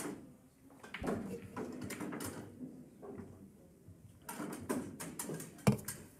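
Pool balls clacking together as they are gathered and set into the rack: a series of sharp clicks, thickest and loudest near the end.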